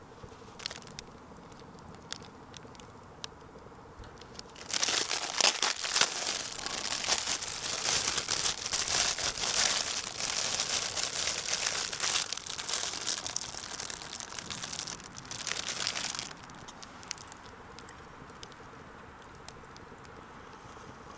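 Crinkling and crumpling, as of something handled in the hands, starting about five seconds in and stopping abruptly about eleven seconds later, with a few faint ticks before it.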